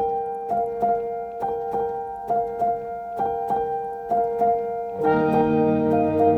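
Background music: a piano or electric keyboard plays a repeating pattern of struck notes over held tones. A fuller layer of sustained lower notes joins about five seconds in.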